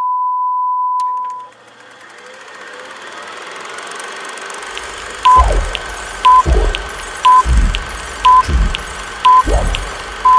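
Colour-bar test tone, a steady 1 kHz beep, for about a second and a half. A hiss then slowly builds up. From about five seconds in, a countdown-leader effect follows: a short beep once a second, five times, each followed by a deep boom that falls in pitch, with a faint tick between beats. A long beep starts at the very end.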